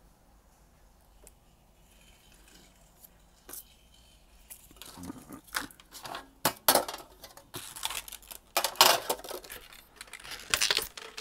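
Quiet handling at first, then from about halfway a run of clicks, knocks and rattles as an empty metal Pokémon card tin with a plastic tray insert is picked up and moved.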